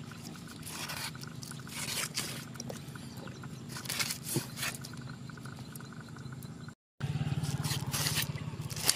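Knife blade scraping along a whole fish on a wooden chopping block, a run of irregular short rasping strokes over a steady low hum, with a brief break about seven seconds in.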